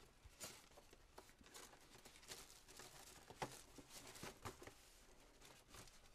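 Faint rustling of cardboard and plastic packaging being handled, with scattered light taps and clicks, the sharpest about three and a half seconds in.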